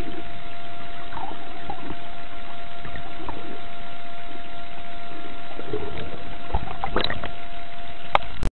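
Boat motor running steadily with a constant hum, heard over water noise; the sound cuts off suddenly near the end.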